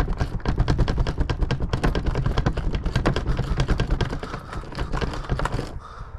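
Rapid, irregular clicking and rattling of a stuck lock being worked at, a key or latch jiggled over and over without giving way.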